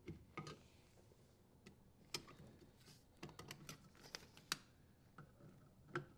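Quiet scattered clicks and taps of a dishwasher's metal terminal box cover being fitted into place and its screw turned with a screwdriver, with a quick run of clicks in the middle.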